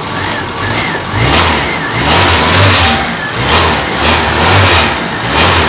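A cold Fiat Uno 1.3's engine being blipped with the throttle, revving up and dropping back about once a second. A cold engine needs these blips to keep running at idle.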